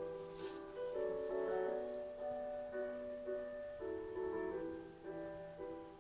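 Gentle piano background music with slow, sustained notes, fading out near the end.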